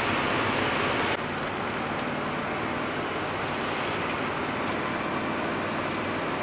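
Steady road and wind noise inside a moving car's cabin at highway speed, tyres on pavement over a low hum. About a second in, the noise steps down a little.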